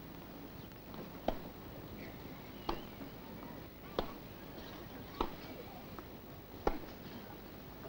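Tennis rally: five sharp racket-on-ball hits, about one every 1.3 seconds, over faint, steady crowd noise.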